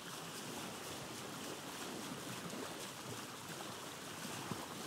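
Faint, steady outdoor hiss of light wind and gentle water at the shore.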